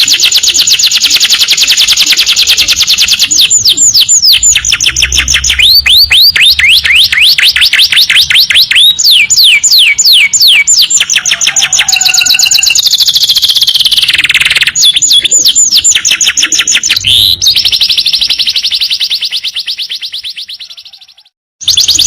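Domestic canary singing long, fast trills: rapid runs of repeated falling notes that switch to a different roll every few seconds. The song fades away near the end, breaks off for a moment, then starts again.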